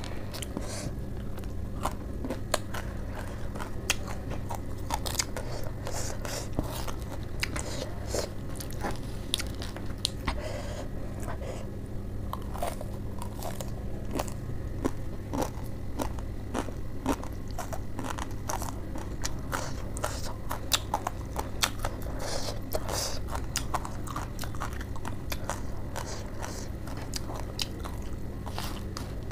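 Close-up chewing and crunching of a mouthful of spicy Wai Wai instant noodles with lettuce: many small crisp crunches in an uneven run, over a steady low hum.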